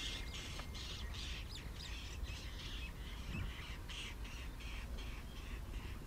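Birds calling in a quick, even run of short harsh calls, about three a second, over a low steady rumble.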